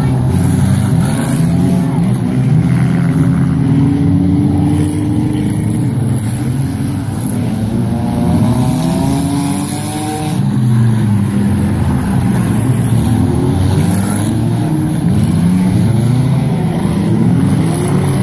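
Several compact race cars' engines running hard at once, each revving up and falling back as the cars accelerate and lift, so that their pitches rise and fall across one another throughout.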